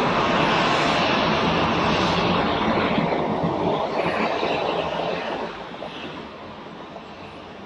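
Cessna 208 Caravan's single turboprop engine running as the aircraft moves away: a steady rush that fades, its higher part dying first, then drops off about five and a half seconds in.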